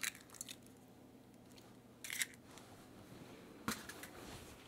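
Faint crackle and clicks of an eggshell being pulled apart over a glass measuring jug, followed by a brief crisp rustle about two seconds in and a single soft tap near the end.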